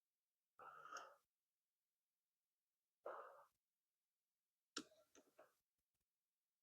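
Near silence, broken by three faint short sounds: about half a second in, at about three seconds, and near five seconds.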